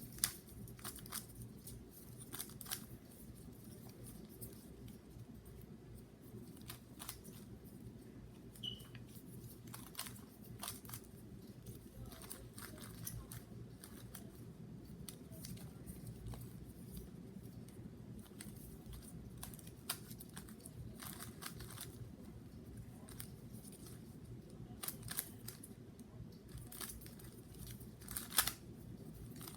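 GAN 3x3 speed cube being turned during a solve: a stream of quick, irregular plastic clicks and clacks as the layers are turned, over a low steady hum.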